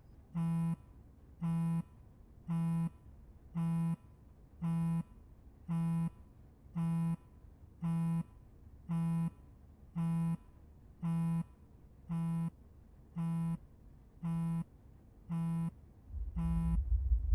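Electronic buzzer beeping steadily: one short, low, buzzy beep about every second. A low rumble swells in near the end.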